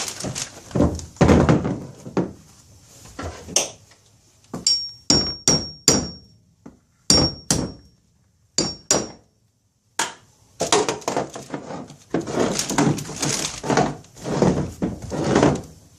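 Hammer chipping frozen, dry-ice-hardened sound deadening off a Honda Civic hatchback's sheet-metal floor. Sharp knocks come one after another, several with a brief high metallic ring, and there are stretches of rapid rough chipping and crackling.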